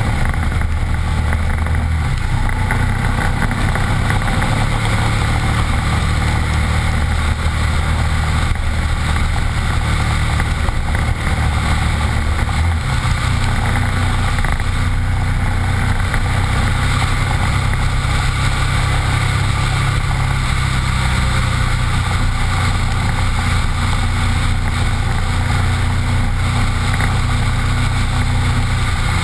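Honda Varadero motorcycle's V-twin engine running at a steady cruise, its low note shifting slightly twice, under loud wind rush on the helmet-mounted microphone and wet-road tyre noise.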